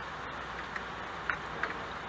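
Steady rain falling, an even hiss with a few louder drops ticking through it.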